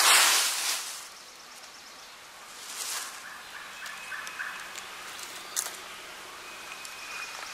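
Wild turkey gobbler gobbling loudly at close range at the start, then a fainter gobble about three seconds in. A run of short soft notes and a single sharp click follow.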